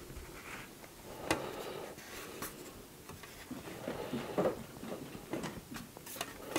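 Hard plastic toy parts being handled during gluing: scattered light clicks and knocks, with a sharper click about a second in and a louder knock and rustle near the middle.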